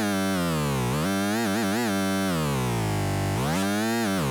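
Arturia MicroBrute monophonic analogue synthesizer sounding one sustained, buzzy note whose pitch is swept down and back up several times by the joystick controller's control voltage, with a quick wobble in places.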